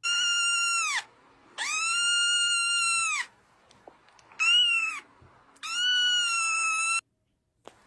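Kitten mewing: four long, high, steady calls with short pauses between them, the third one shorter and wavering.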